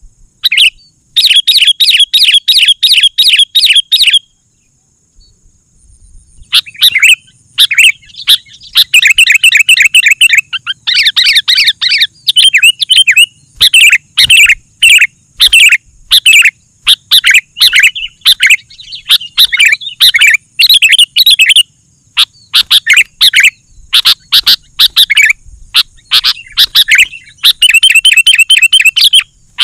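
Sooty-headed bulbul singing energetically: fast runs of bubbly, chirping notes repeated over and over, with a pause of about two seconds a little after the start.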